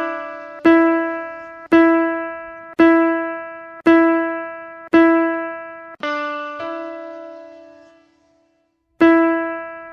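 Toy piano played one key at a time, the same note struck about once a second, each note ringing and fading. About six seconds in, a lower note sounds briefly, then the first note returns and is held longer. After a short pause, one more note is struck near the end.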